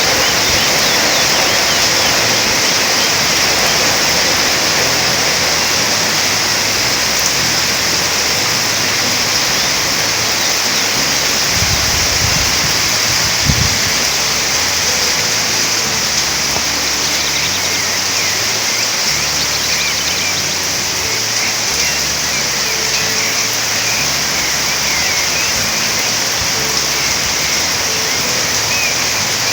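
Steady heavy rain falling, with faint bird chirps over it early and again in the second half, and a single soft thump about halfway through.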